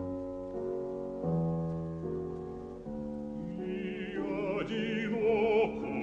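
Classical piano accompaniment playing sustained chords. About four seconds in, a bass voice comes back in over the piano, singing with a wide vibrato.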